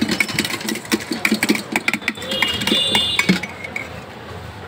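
A steel spoon clinking and scraping quickly and irregularly against a stainless-steel pot as bhelpuri is mixed. The clatter stops about three and a half seconds in.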